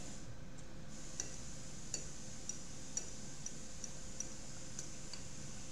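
Quiet eating sounds: faint, irregular light clicks of a fork and salad being eaten, scattered about a second apart over a steady low hiss.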